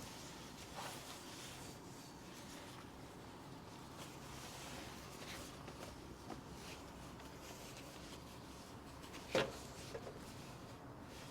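Faint handling sounds from unboxing a book box: light rubbing and soft taps of items being moved about, with one sharper tap about nine seconds in.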